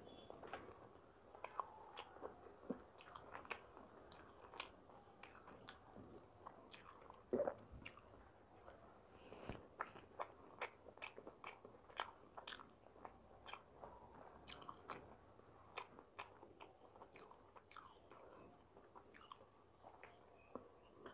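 Close-up eating sounds of a person chewing masala dosa: many short, sharp wet smacks and clicks of the mouth, with a louder one about seven seconds in.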